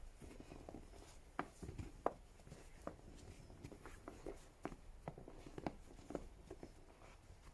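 Snow crunching in irregular soft crunches and scrapes, a dozen or so short strokes with no steady rhythm.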